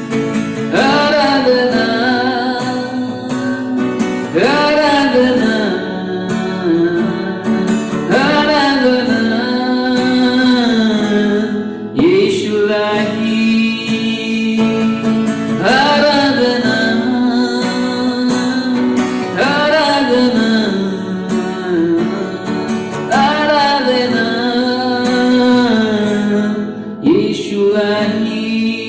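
Worship song: singing over strummed acoustic guitar, with a sung phrase that returns every three to four seconds.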